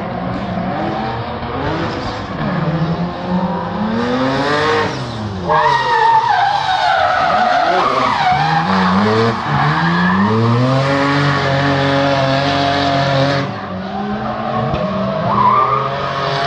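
A drift car's engine revving up and down through a long slide while its rear tyres squeal and skid. The tyre noise is loudest from about four seconds in until a few seconds before the end.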